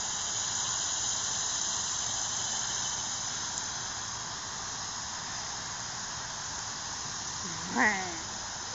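Steady high-pitched drone of insects, an unbroken shrill hum. Near the end a short vocal sound with falling pitch cuts in.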